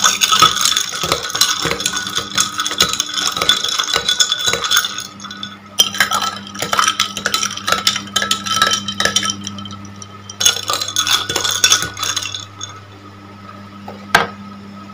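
Metal spoon stirring drinks in tall drinking glasses, clinking quickly and repeatedly against the glass so that it rings, in three bouts, followed by a single clink near the end.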